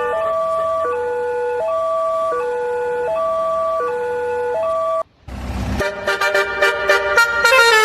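Basuri melodic horn on a train, playing a short stepped tune of a few notes that repeats over and over like a siren. It cuts off suddenly about five seconds in; after a brief low rumble, a busier, faster tune with a sharp beat starts.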